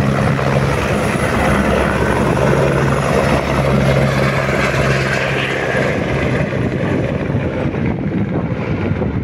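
Helicopter running close by, a loud, steady rotor and engine noise with a thin high whine; its low drone weakens about six seconds in.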